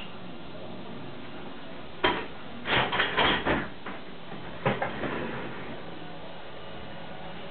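A sharp knock, then a quick cluster of clattering knocks about a second later, then one more knock, over a steady background hiss.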